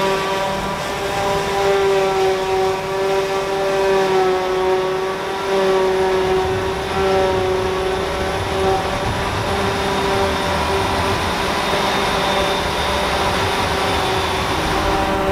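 CLAAS Jaguar self-propelled forage harvester running at work chopping grass, with a steady whining tone over the machinery noise that eases off a little in the second half.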